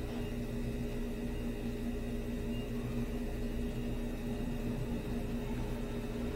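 Steady low electrical hum with an even hiss: room tone with no distinct events.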